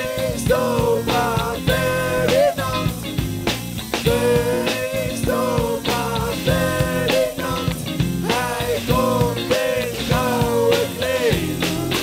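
Live rock band playing an instrumental break, with a lead melody line that bends in pitch over a steady drum beat and bass.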